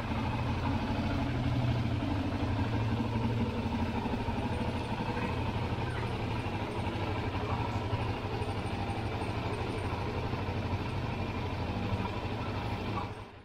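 Suzuki DR-Z400SM's 398 cc single-cylinder four-stroke engine idling steadily, fading out near the end.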